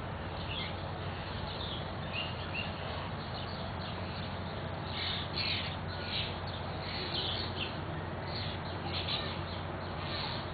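A flock of European starlings with their fledglings calling in a backyard: many short, harsh, downward-sliding calls overlapping, some louder bursts about halfway through.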